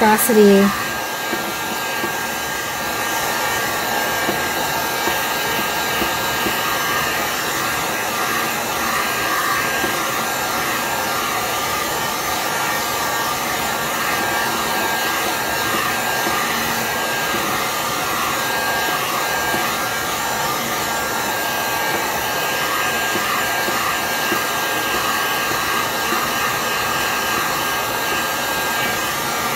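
Handheld heat gun blowing steadily over wet acrylic paint: a continuous rush of air with a thin, constant whine.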